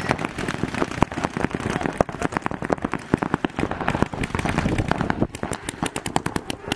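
Paintball markers firing in rapid streams during a speedball game: a dense run of sharp pops, many per second, overlapping throughout.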